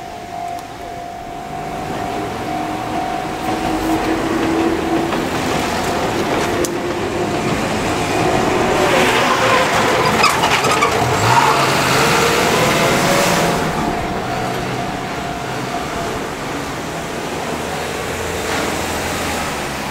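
Japanese level-crossing warning bell ringing steadily while an Enoden (Enoshima Electric Railway) train runs past, loudest in the middle. The bell stops about three-quarters of the way through, and car traffic follows.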